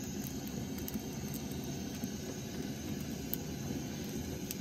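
Steady low rushing of a small gas burner's flame under a frying pan, with a few faint light ticks from the pastry frying in the pan.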